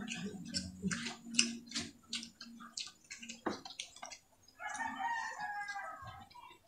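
Close-up chewing and wet mouth clicks from eating with the hands. Past the middle, a rooster crows once, about a second and a half long.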